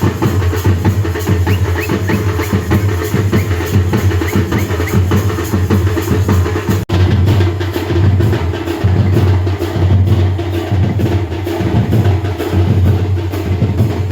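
Rhythmic drumming with a heavy low beat and dense, even strikes. The sound breaks off sharply about seven seconds in and a similar drum passage carries straight on.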